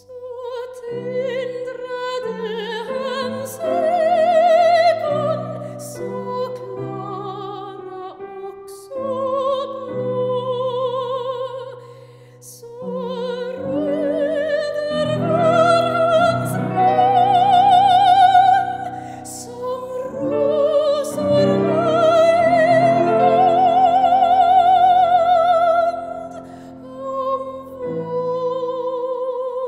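Operatic soprano singing with wide vibrato, accompanied by grand piano. The voice swells on long held notes about halfway through and again toward the end.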